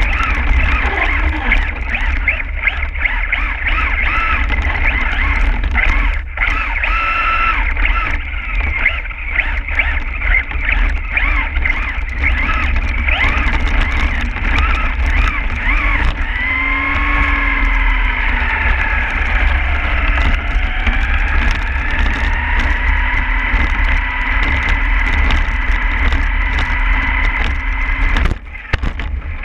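RC truck's motor whining, its pitch rising and falling with the throttle, over a heavy low rumble as the onboard camera rides the truck across slush and snow.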